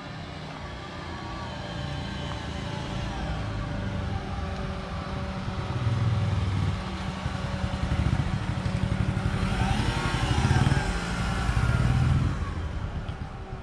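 A motor engine running close by as a low rumble, growing louder over several seconds, loudest around ten to twelve seconds in, then dropping away near the end.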